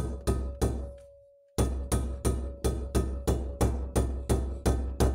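A mallet strikes the timing-side main bearing into a heated aluminium Norton Commando 850 crankcase at about three sharp, ringing blows a second, with one short pause about a second in. The bearing has not dropped in under its own weight and is being driven home before the case cools.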